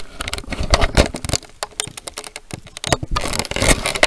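A black bear's fur and muzzle rubbing and bumping against a trail camera, right on the camera's own microphone: loud, dense scraping with irregular knocks and rattles.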